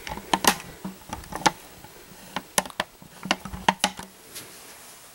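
A camera and its tripod handled and re-aimed close to the microphone: a string of sharp, irregular clicks and knocks, about a dozen over four seconds, that stops near the end.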